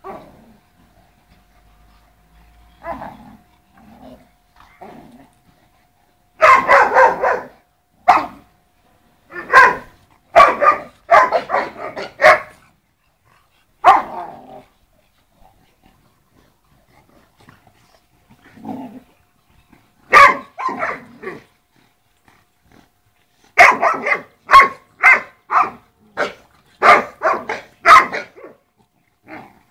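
Sarplaninac and Shar-Pei dogs barking and growling as they wrestle in play. The barks come in loud, irregular bursts with quiet gaps between, and the longest run of barking is near the end.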